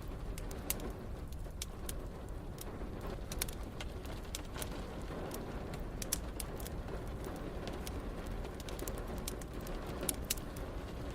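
Wood fire crackling in a fireplace: irregular sharp pops and snaps over a steady low rush.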